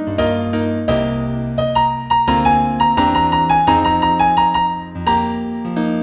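New age instrumental music: a gentle melody of struck, decaying keyboard notes over slower chords.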